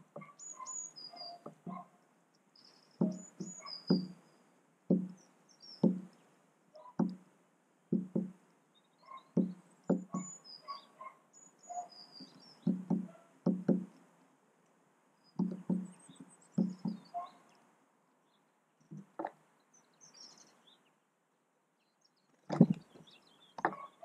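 European robin pecking at seed on a feeder tray close to the microphone: irregular short knocks, about one or two a second, pausing now and then. High, thin chirps of small birds sound above the knocks.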